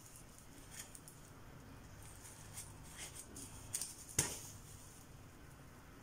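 Hand-sewing a hair weft onto a wig cap: faint rustles and swishes of needle and thread being drawn through the cap and hair, with a few soft ticks and one sharper click about four seconds in.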